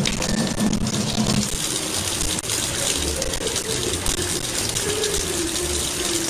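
Kitchen tap running in a thin, steady stream into the sink, a continuous even hiss of falling water.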